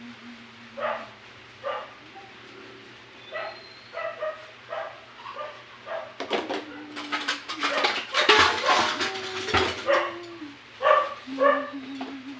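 A dog barking over and over in short barks, with a louder stretch of clattering in the middle.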